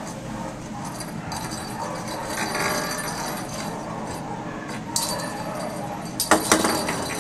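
A plastic lattice cat ball with a bell inside, jingling and rattling as kittens bat it across a hard floor. A few sharp knocks near the end are the loudest part.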